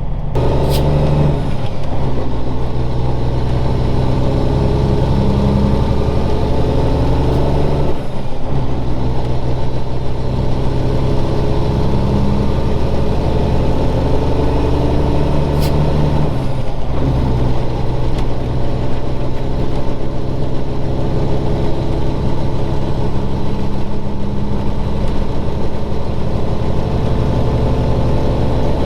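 A Cummins Signature Series diesel in a Peterbilt 379 semi truck running under load while driving. The engine note breaks briefly three times, about eight seconds apart, as at gear changes.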